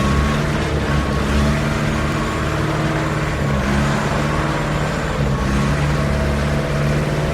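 Concrete mixer truck running steadily, its engine humming with the drum turning.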